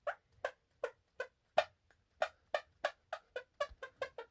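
A person making 'ear farts': a run of short, hollow pops, about three a second, quickening to about six a second past three seconds in.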